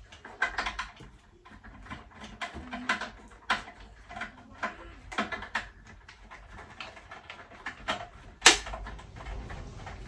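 Hard plastic parts of a Jimmy H9 Pro cordless vacuum being handled and fitted together, giving scattered small clicks and knocks, with one sharp, loud click about eight and a half seconds in.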